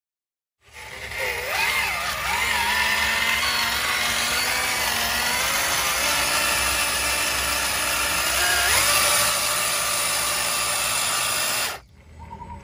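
RC crawler's 540-size 8-turn brushed electric motor on a 2S battery whining through its gearbox and portal axles. The pitch wavers with throttle and load, climbs near the end, then cuts off suddenly.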